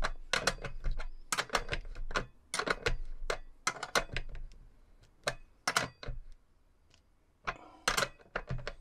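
Spanner tightening the nuts on battery-cable terminal lugs: a run of quick, irregular metallic clicks, with a pause of over a second near the end before a few more.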